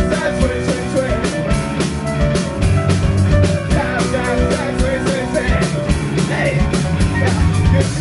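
Loud rock music with a driving drum-kit beat over bass and melodic lines.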